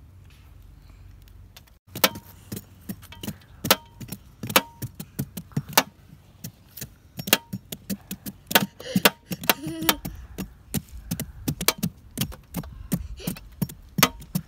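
A knife and a cleaver shaving the rind off a whole pumpkin: quick, irregular chops and scrapes, about two or three a second, some with a short metallic ring. They begin about two seconds in.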